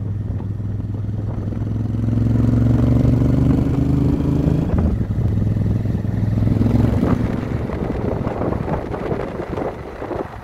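Honda Africa Twin motorcycle engine running steadily under way, growing louder about two seconds in, with a change in its note near the middle. After about seven seconds the engine note fades under rushing wind noise.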